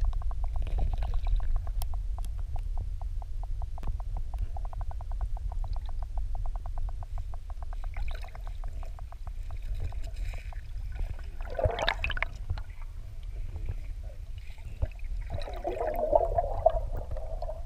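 Underwater sound beside a fish-release hose in a river: a steady low rumble of water with a fast, even ticking for the first half. Bubbly gushes come about twelve and again about sixteen seconds in, as water and air bubble out around the hose.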